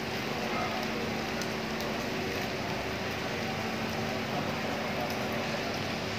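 Steady heavy rain falling on a flooded courtyard: an even hiss with a few faint drips, over a faint low steady hum.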